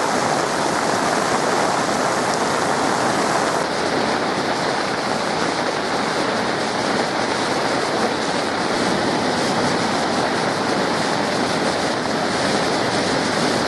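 Floodwater rushing and churning in a steady, loud roar of flowing water.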